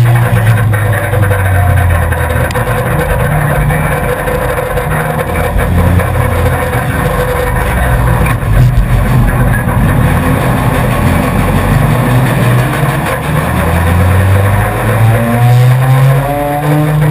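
In-car sound of a four-cylinder enduro race car's engine running hard under racing load. The revs sag and pick up again through the pack, then climb steadily near the end as the car accelerates.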